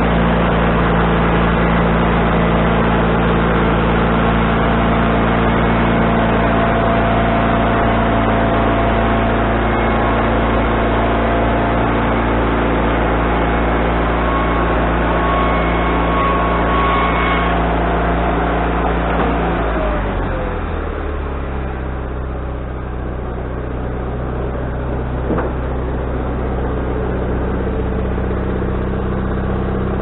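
Wood-Mizer LT40HD band sawmill running at cutting speed as the saw head travels through a cut along the log. About two-thirds of the way through, the engine speed drops suddenly with a falling whine, and the mill runs on more slowly, with one short click near the end.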